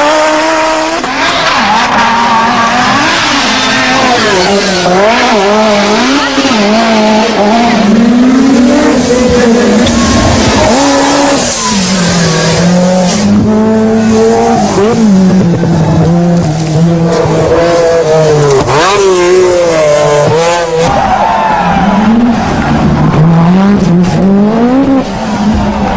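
Group B rally car engines revving hard, the pitch climbing and dropping again and again through gear changes and lifts off the throttle.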